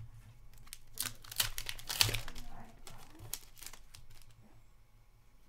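Wrapper of a sealed hockey card pack being torn open and crinkled: a run of sharp crackles, loudest about one to two seconds in, then softer crackles that fade out.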